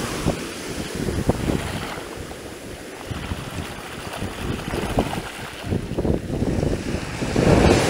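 Shallow surf washing and foaming over black volcanic sand, with wind buffeting the microphone.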